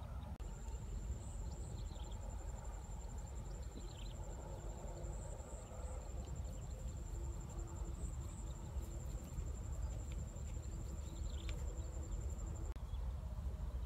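An insect trilling steadily at a high pitch in a rapid, even pulse, stopping near the end, over a low rumble.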